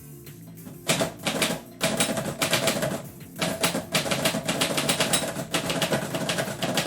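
Typewriter keys struck in quick runs of sharp clacks, starting about a second in, with a short pause near three seconds before the typing picks up again.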